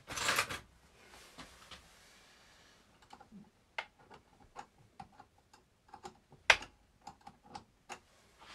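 Small sharp clicks and taps of hand tools and metal parts on a radio-controlled car's front suspension while the toe-in is being adjusted, an irregular two or three clicks a second starting about three seconds in, one louder knock past the middle. A brief rustle at the very start.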